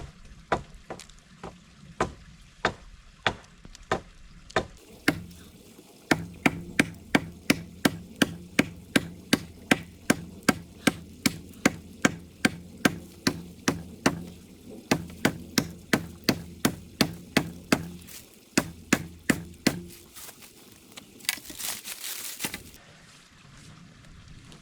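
Axe chopping into a log: a steady series of sharp blows, spaced out over the first few seconds, then coming about three a second until they stop near the end.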